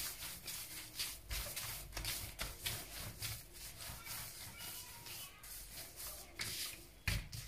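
Gloved hands rolling a log of lard pastry dough back and forth on a silicone baking mat, making soft rubbing swishes with each irregular stroke.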